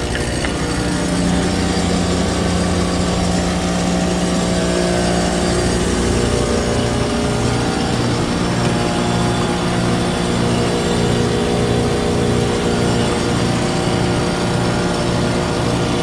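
2019 Carrier Gemini heat pump outdoor unit running in heating mode: a steady compressor hum with its two top fans blowing air. The coil is heavily frozen over, which the owner puts down to low refrigerant charge and a 90-minute defrost interval.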